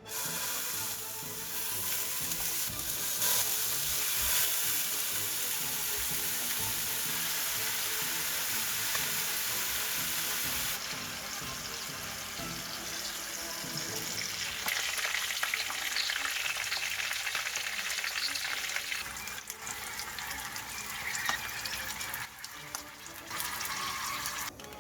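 Food frying in a hot pan: a steady, dense sizzle that turns into a sharper, crackling spatter about fifteen seconds in.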